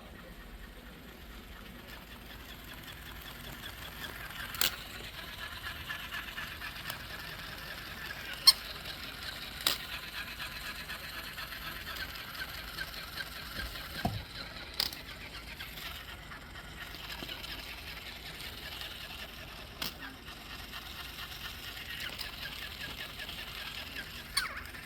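Goldendoodle puppy roughhousing with a stuffed toy dog: a continuous run of squeaky, scrabbling play noise with several sharp knocks scattered through, the loudest about eight seconds in.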